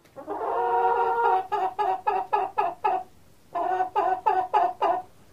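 A Polish chicken calling twice. Each call is a held note that breaks into a quick run of short clucks, about five a second.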